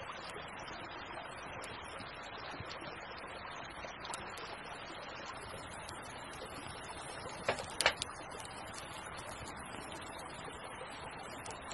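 Campfire of damp wood crackling, with sharp pops scattered over a steady rushing noise and two louder pops close together about seven and a half seconds in.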